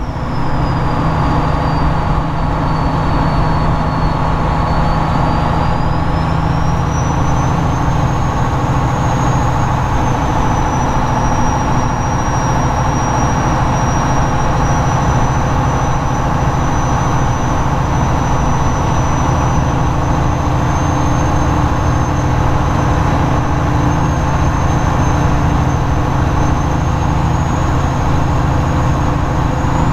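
Semi truck's diesel engine and road noise heard from inside the cab while driving, a steady drone with a faint high whine that slowly rises and falls.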